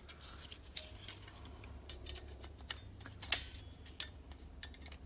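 Irregular small metallic clicks and ticks of pliers working at the coiled wire elements and crimped tabs of a Renault Clio 1 heater-blower resistor pack, pulling out the remains of its broken thermal fuse; the sharpest click comes about three seconds in.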